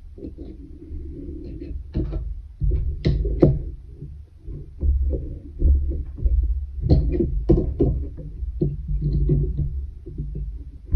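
Hands weaving on a wooden pin loom: a long weaving needle is worked through the yarn and the rows pressed down, with low thumps from the frame on the table and several sharp knocks.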